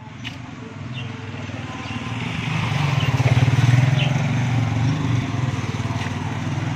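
A motorcycle engine running as it rides past close by, swelling to its loudest about halfway through, with a steady low engine hum throughout.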